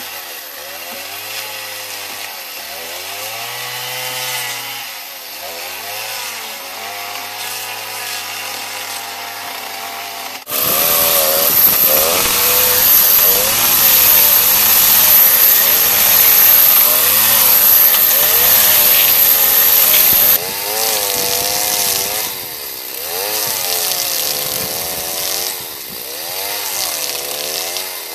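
Stihl chainsaw driving a Log Wizard planer head, shaving the flat bottom of a Douglas fir log, with the engine speed rising and falling as it bites. About ten seconds in it turns suddenly much louder, with a strong hiss of shavings, and about ten seconds later it drops back just as suddenly.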